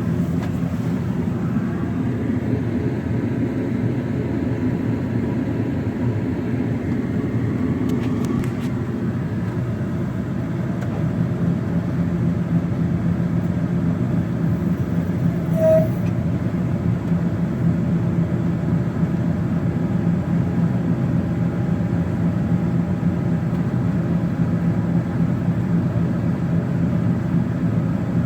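John Deere 9600 combine harvester running steadily under load while cutting grain, with a brief beep about halfway through.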